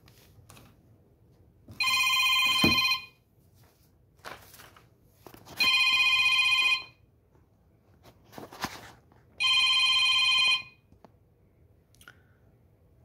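Telephone ringing: an electronic ring tone about a second long, sounding three times roughly every four seconds.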